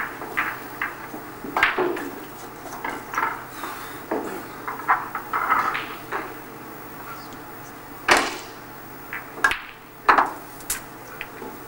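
Snooker cue and balls clicking as a shot is played: a run of sharp knocks, the two loudest about eight and ten seconds in, with lighter taps between.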